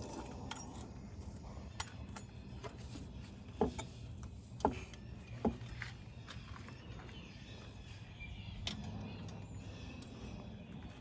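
A few light metallic clinks and knocks, scattered and irregular, over a faint steady low hum.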